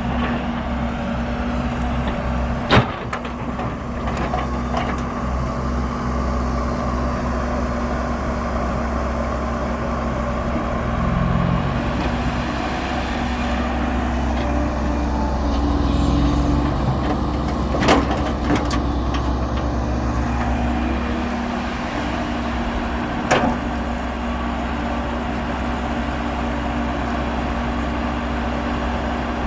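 Diesel dump truck engine running steadily under way, its pitch shifting a little partway through. Three sharp knocks stand out, about 3 s in, near 18 s and near 23 s.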